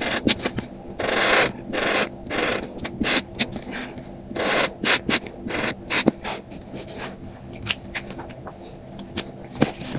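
Close-up rubbing and scraping on paper card in short bursts of about half a second, with many small clicks and taps in between; after about six and a half seconds it goes quieter, with only scattered clicks.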